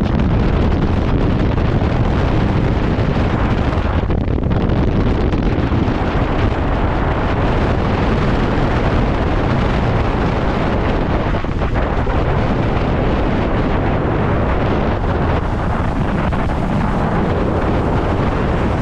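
Wind buffeting the microphone: a steady low rumble with hiss, no break.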